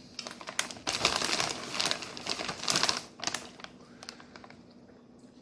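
Crinkling and crackling of a snack chip bag being handled: a dense run of sharp clicks lasting about three seconds, then fading to quiet room tone.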